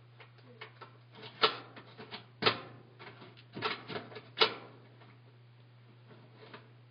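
Washing machine being handled: a run of sharp clicks and knocks, four of them louder, in the first two thirds, over a steady low hum. The machine has not yet started.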